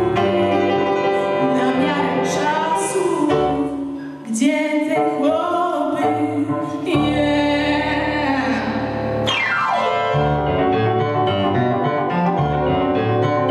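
A woman sings a Polish song into a microphone with live piano accompaniment. About nine seconds in comes a quick falling run, and near the end the piano carries on alone.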